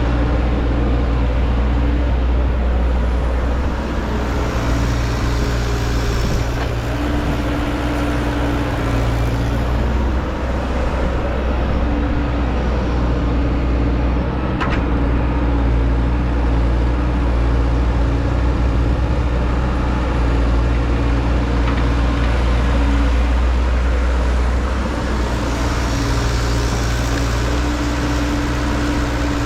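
Heavy machinery engine running steadily without a break, its pitch shifting slightly a few times as the load or revs change.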